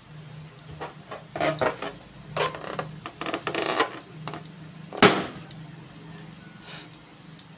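An inflated latex balloon bursts with a single sharp pop about five seconds in, pierced by the pointed tip of a popsicle-stick blade. Before it come a few seconds of rubbing and clicking as the balloon is handled and pressed against the wooden blade.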